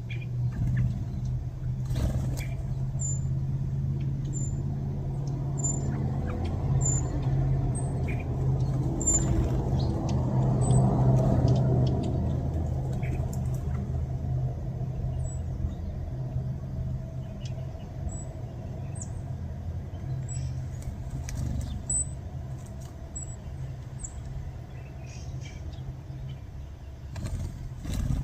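Birds chirping, short high peeps roughly once a second, over a steady low rumble.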